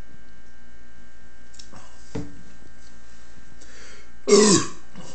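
A loud, short burp about four seconds in, brought up by hypercarbonated water, over a steady electrical hum; a faint click about two seconds in.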